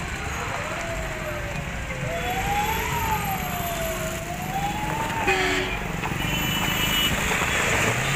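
Road traffic noise with a siren-like tone wailing slowly up and down, and a short vehicle horn toot about five seconds in.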